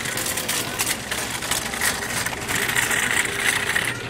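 A car's engine running steadily, heard as a low hum and rumble, with scattered small clicks and rustles over it.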